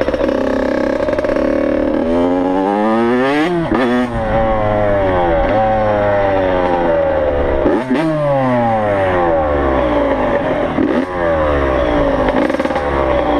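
Yamaha YZ85's two-stroke single-cylinder engine revving as the dirt bike is ridden, its pitch climbing and dropping several times as the throttle is opened and eased off.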